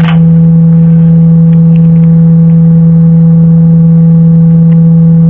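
A loud, steady low hum with fainter higher overtones, holding one unchanging pitch.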